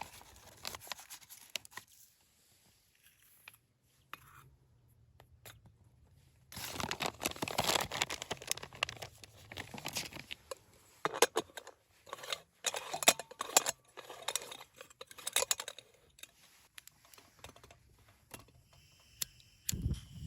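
Close-up rustling, crinkling and clicking of things being handled, in irregular bursts with short quiet gaps between them.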